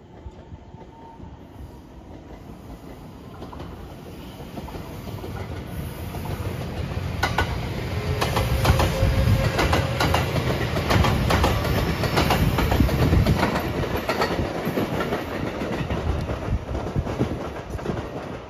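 JR West 227 series 'Urara' electric multiple unit passing: its running sound builds steadily, then the wheels clack over rail joints as the cars go by, and the sound fades as the train moves off.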